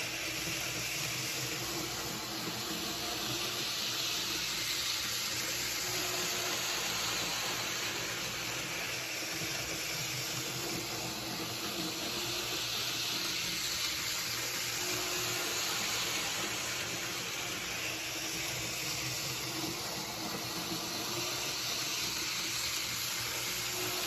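Steady hiss-like background noise with a faint low hum, even throughout with no clicks or rhythm.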